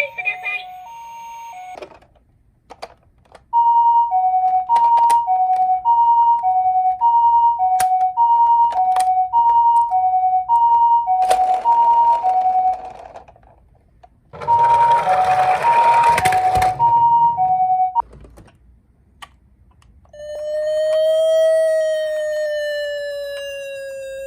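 Toy ambulance's electronic Japanese two-tone "pipo-pipo" siren, sounding high-low about once a second in two runs. A rushing noise joins it twice. Near the end a wailing siren tone slides slowly up and down.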